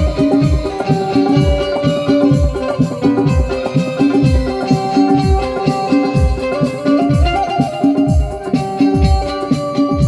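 Instrumental ringtone music: a plucked-string melody over a steady, repeating low drum beat.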